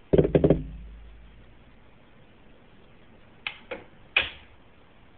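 A quick cluster of four sharp knocks with a low thud trailing off, then three shorter clicks about three and a half seconds later.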